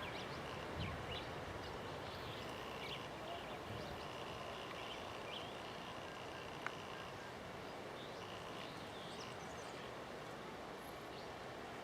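Steady high trilling of insects, such as crickets, with scattered short chirps over it and a single sharp click about two-thirds of the way through.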